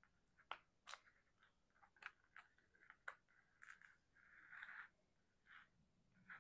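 Faint clicks and light taps of small plastic diamond-painting butterfly pendants being picked up, knocked together and set down on a tabletop. A brief soft scraping rustle comes about four and a half seconds in.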